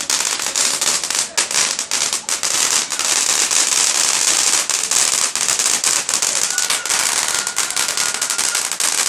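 Fireworks crackling: a dense, continuous run of rapid sharp pops and crackles that never lets up.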